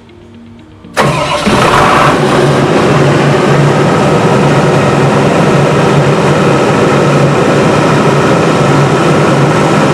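Tsuzumi TDG 85 kVA diesel generator set starting abruptly about a second in, then running steadily with no load at about 1500 rpm.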